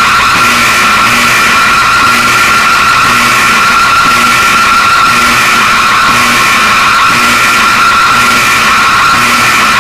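Loud, harsh, distorted electronic alarm tone in the style of an Emergency Alert System attention signal, holding one high pitch with a low pulse repeating a little more than once a second.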